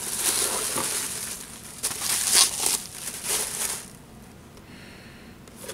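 Tissue paper rustling and crinkling as hands dig through it inside a cardboard box, with a few sharper crackles, dying down about two-thirds of the way through.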